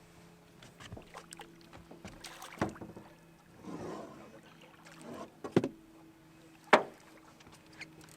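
Scattered knocks and clatter on a boat's deck and hull as a catfish and tangled line are handled and brought aboard. Two sharp, loud knocks come just past the middle, and a faint steady hum runs underneath.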